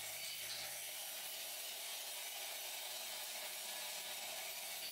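Electric arc welding, a steady crackling hiss.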